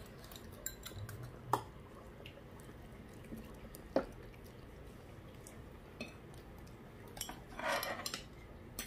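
Metal spoons clinking and scraping against metal bowls as children eat: a few sharp, scattered clinks, the clearest about one and a half and four seconds in, and a short scrape near the end.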